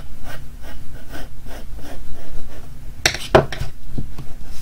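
Pencil sketching on paper: quick short strokes at about four a second, then a few louder knocks about three seconds in.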